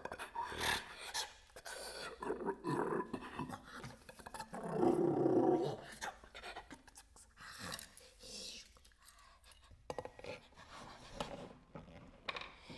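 A solo performer making breathy voice sounds as part of a contemporary music piece: short, irregular breaths and noises, with one louder held sound about five seconds in.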